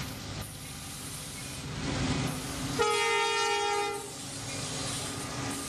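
Diesel freight locomotives rumbling past, led by a Norfolk Southern SD70M, with one short horn blast about three seconds in.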